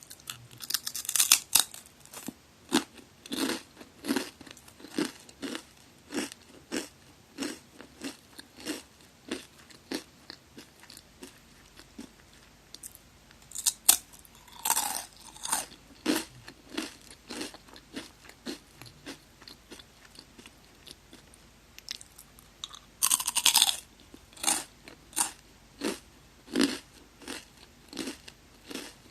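Close-miked crunching and chewing of magari senbei, crisp Japanese rice crackers. There are three loud crunching bites, about a second in, about halfway through and about two-thirds through, each followed by steady rhythmic chewing at roughly two chews a second.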